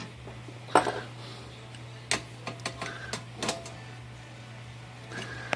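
Sharp metal clicks and clinks from handling a Royal 10 typewriter's carriage and steel hand tools, about half a dozen with the loudest about a second in, over a steady low hum.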